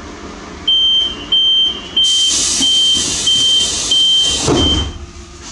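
Commuter train's door-closing warning: a high beep repeating about seven times, roughly one and a half a second, with a loud hiss of air joining partway through and a low thump near the end as the doors shut.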